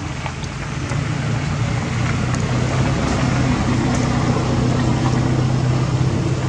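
A motor running steadily with a low, even hum, getting louder about a second in.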